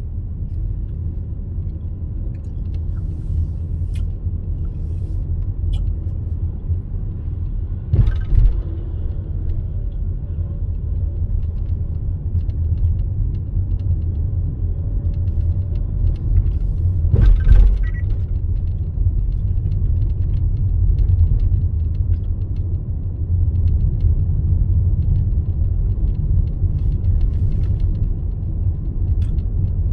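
Steady low rumble of a car driving, heard inside the cabin: engine and road noise. Two brief louder thumps about eight and seventeen seconds in.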